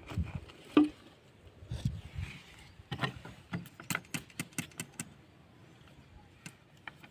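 Irregular clicks and knocks of hard objects being handled, loudest about a second in, with a quick run of sharp clicks between three and five seconds in.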